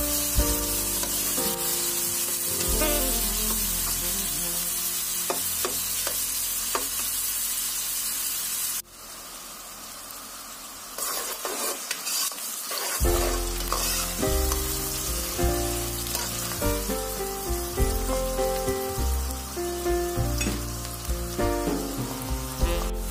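Diced onions sizzling and frying in hot oil in a pot while being stirred. The sizzle drops away suddenly about nine seconds in and comes back a few seconds later. Background music plays underneath.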